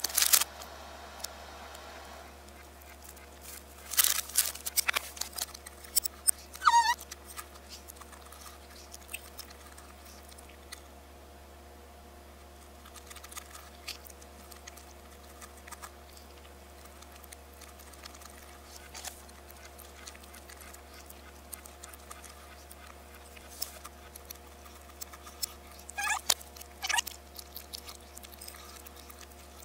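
Sparse clicks of a metal fork against dishware, in clusters about four seconds in and again near the end, over a steady low electrical hum. A short wavering squeak about seven seconds in.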